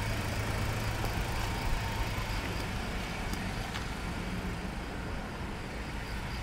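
Steady outdoor street ambience: a low, even hum of distant road traffic, with a few faint ticks.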